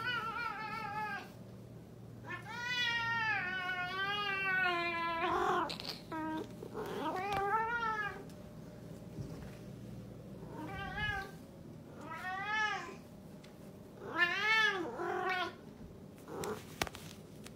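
Domestic cat meowing again and again, about seven calls in all; the longest is a drawn-out, wavering meow of about three seconds starting about two seconds in.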